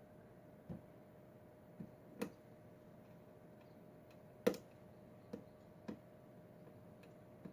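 Lock pick and tension wrench working a Schlage pin-tumbler lock, giving about seven faint, irregularly spaced clicks, the loudest about four and a half seconds in.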